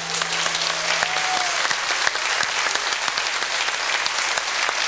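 Studio audience applauding, a dense steady clapping, with the last held low note of the finished song dying away in about the first second.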